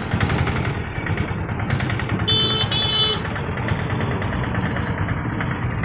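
Road vehicle engines idling in waiting traffic, a steady low hum, with a high-pitched vehicle horn beeping twice in quick succession about two and a half seconds in.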